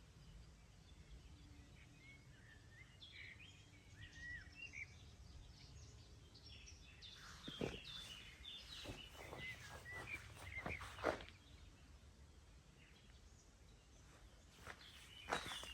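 Small songbirds singing and chirping in short, high, bending phrases over a faint low background rumble. In the middle there is a run of several short, louder clicks.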